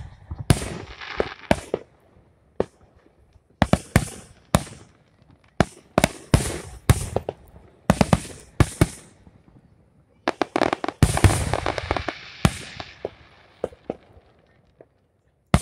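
Aerial firework shells bursting one after another: sharp bangs, each with an echoing tail. A little past the middle comes a dense run of rapid bangs and crackling.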